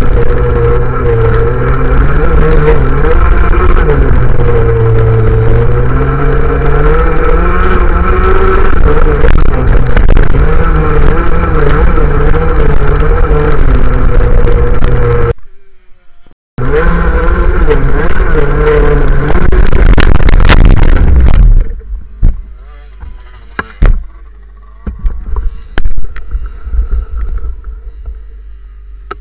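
Racing scooter's small two-stroke engine running hard, its pitch rising and falling as it accelerates and slows through the turns. It cuts out for about a second halfway through, then comes back. About two-thirds through it gives way to a much quieter low rumble with scattered knocks.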